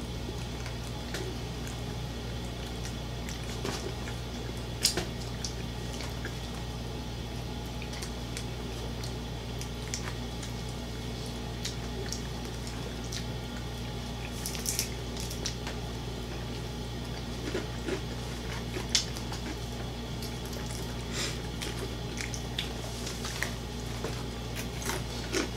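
Close-up eating sounds: wet chewing, lip smacks and scattered crackles as fried chicken and soft sides are eaten with bare hands, over a steady low hum.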